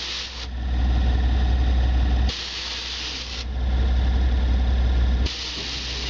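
Airbag suspension on a lowered pickup being let down by remote: spells of air hissing out of the bags alternate with spells of a louder, steady low hum, three hissing spells in all, as the truck settles lower.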